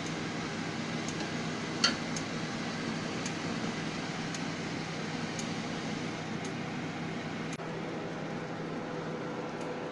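Oven fan running with a steady hum. Faint ticks come about once a second, and there is one sharper click a little under two seconds in.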